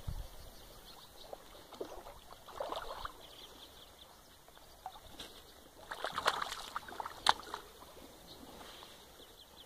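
A hooked fish splashing at the surface as it is reeled in on ultralight tackle and landed. The splashing comes in short bursts, once about three seconds in and again, louder, around six to seven seconds in.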